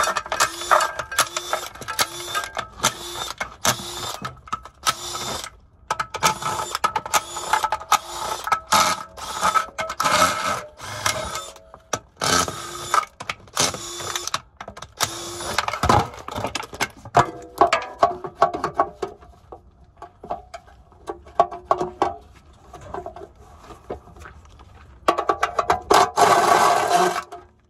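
Cordless impact wrench hammering in runs of a few seconds with short pauses, running bolts out of a GM 4L60E automatic transmission. The runs get fainter past the middle, and a loud run comes near the end.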